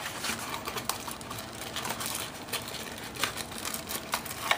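Hands handling a cardboard accessory box and its packaging: rustling with several sharp clicks and taps scattered through.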